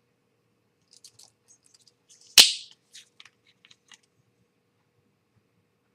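Small clicks and light scrapes of paint supplies being handled on a work table, with one sharp click about two and a half seconds in, the loudest sound.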